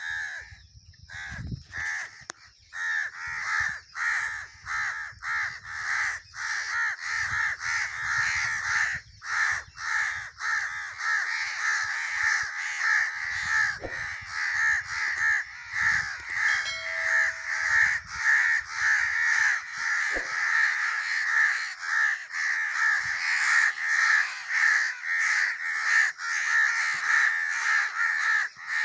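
Crow cawing over and over, the caws following one another in quick succession with little pause between them.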